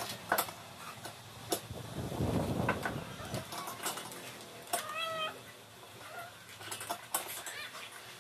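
Small metal hand tool clicking and tapping against the screws and metal frame of a salon chair's back panel as it is fastened, with a low rumble around two to three seconds in. A short high-pitched cry sounds about five seconds in.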